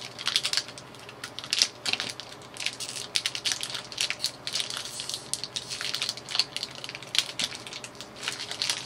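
Plastic snack wrapper crinkling and crackling in quick, irregular bursts as it is squeezed and worked open by hand.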